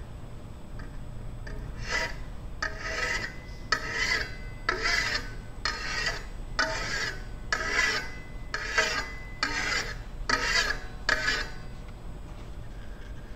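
Hand file scraping the edge of an aluminum disc to deburr it: about ten rasping strokes, roughly one a second, stopping about two seconds before the end.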